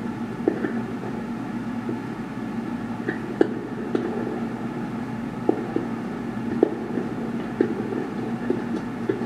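Fireworks going off: scattered sharp pops and bangs about once a second over a steady low rumble.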